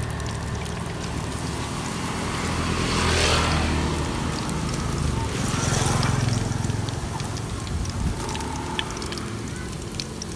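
Beaten egg sizzling in hot oil in an aluminium wok as it is poured in and rolled onto a skewer for telur gulung, with small crackles; the sizzle swells about three seconds in and again about six seconds in. A steady low engine rumble runs underneath.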